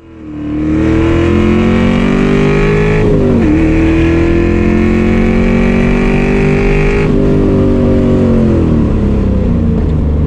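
Race car engine heard from inside the cabin, pulling hard at full throttle with the pitch climbing. A quick dip about three seconds in, as at a gear change, is followed by more pulling. About seven seconds in the throttle lifts and the revs fall away.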